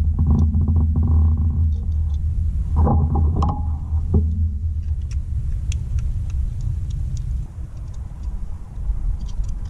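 A steady low rumble, with light clicks and taps scattered through the second half.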